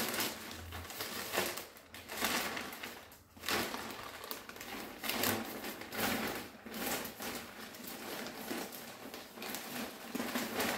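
Plastic mailer bag rustling and crinkling as hands pull it open and rummage inside it, in uneven bouts with short pauses between.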